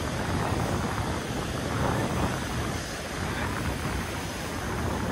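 Steady rushing of ocean surf mixed with wind buffeting the microphone.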